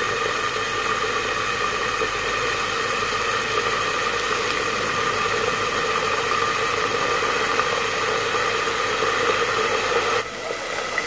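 Batter-coated chicken drumsticks deep-frying in hot oil in a karahi under a glass lid: a steady sizzle. Near the end the sound changes abruptly and drops as the lid is lifted off.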